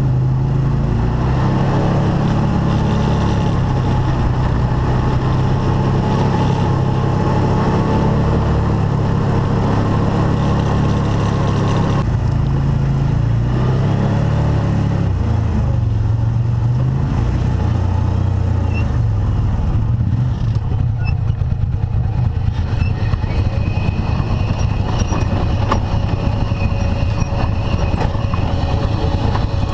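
Arctic Cat Wildcat side-by-side UTV engine running while driving an off-road trail, its pitch rising and falling with the throttle. From about twenty seconds in, light rattles and knocks join it.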